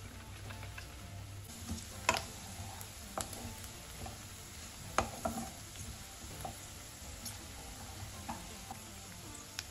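A spoon stirring curd in a plastic tub, then chopped onions sizzling in oil in a non-stick kadai while a spatula stirs them, scraping and knocking against the pan now and then, most sharply about two seconds in and again at five seconds.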